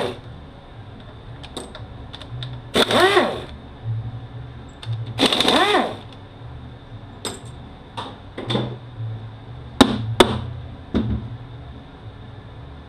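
Hand tools at work on the bolts of a Mercedes 722.9 automatic transmission: a few drawn-out squeaks as bolts are turned out with a socket, between sharp metal clicks and knocks, the loudest knock a little after halfway.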